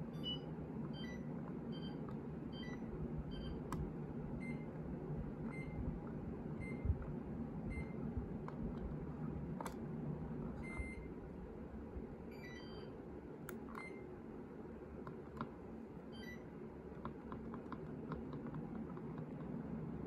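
Short high electronic beeps repeating irregularly throughout, some as pairs of tones, with a few sharp clicks, over a steady low hum.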